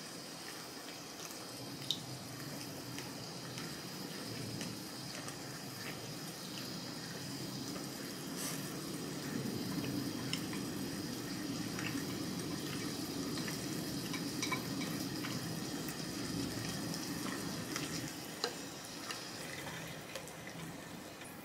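Beef steak sizzling on an electric griddle, with chewing and a few sharp clicks of chopsticks.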